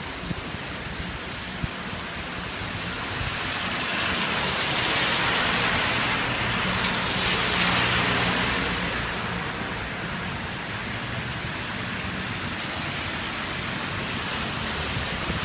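Heavy typhoon rain falling and splashing, with gusty wind: the rush swells louder from about three seconds in and eases off again after about nine seconds.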